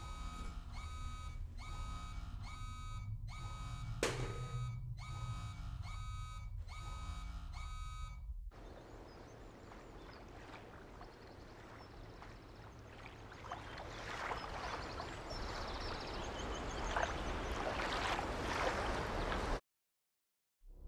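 An electronic alarm beeping steadily, about one pitched beep every 0.8 seconds over a low hum, with a sharp knock about four seconds in. About eight seconds in it cuts off abruptly, giving way to a soft, even rushing noise that slowly grows louder, then drops to silence about a second before the end.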